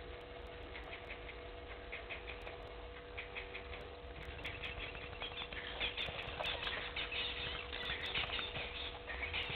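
Outdoor bush ambience of rapid, high chirps and twitters from small wild animals, growing busier and louder about halfway through, over a faint steady hum.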